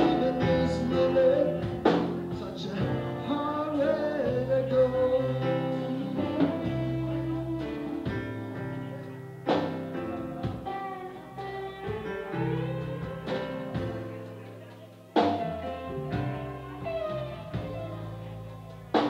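Live blues-rock band playing, with electric guitar, and a few strong accented hits.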